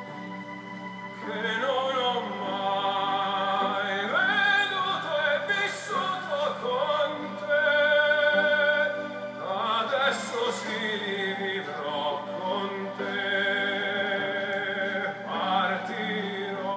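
Music with operatic singing: long held notes with vibrato and sweeping pitch glides, cutting off suddenly at the end.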